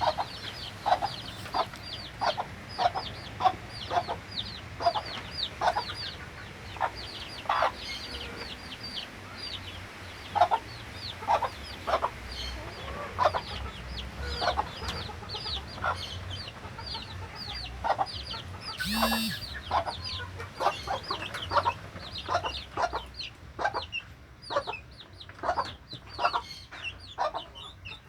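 Chickens clucking, with a steady stream of short high peeping calls and one louder, longer call about 19 seconds in.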